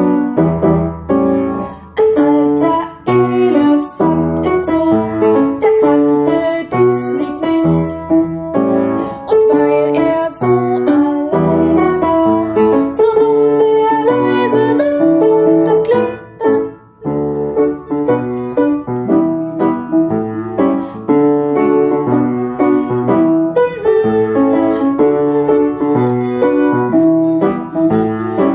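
Piano playing the melody of a cheerful children's song while a woman hums along without words.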